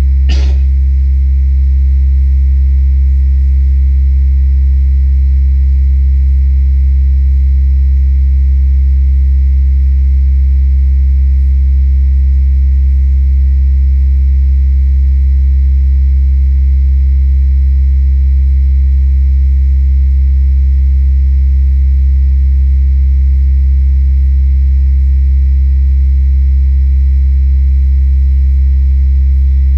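Steady low electrical hum, which the recordist attributes to the power lines of the electric grid, heard with the bass boosted and the treble cut; a brief click just under half a second in.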